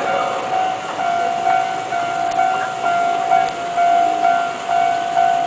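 Japanese railway level-crossing warning bell ringing, a repeated electronic ding at about two rings a second, sounding for an approaching train.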